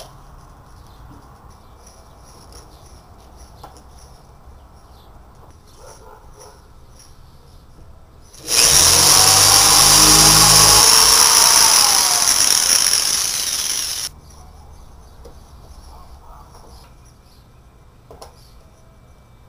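Corded electric drill running against the wooden ceiling for about five and a half seconds, then stopping suddenly.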